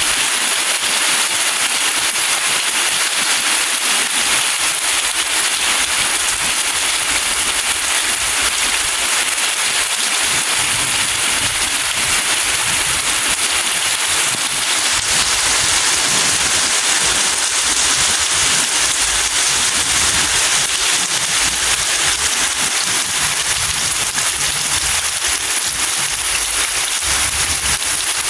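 Steady rain falling, a dense crackling patter of drops that stays at the same loudness throughout.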